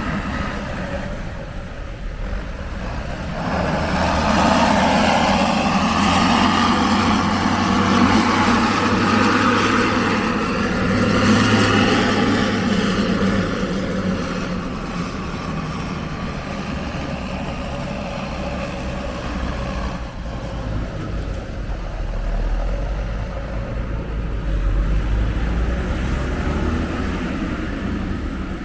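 Road vehicles running at speed: a low engine hum with tyre and wind noise. It swells louder from about four seconds in and eases back after about thirteen seconds, as a large vehicle passes or pulls hard.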